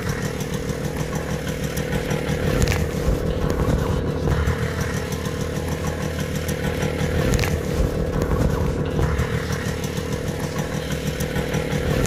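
1980 DEMM Scout moped's small two-stroke single-cylinder engine running steadily on its stand, with a few slight swells in engine speed.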